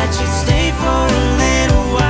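Background pop music with a steady beat, an instrumental gap between sung lines.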